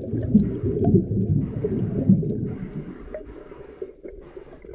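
Muffled underwater rumble and gurgling picked up by a submerged camera as a diver swims, louder in the first half and dropping off about halfway through.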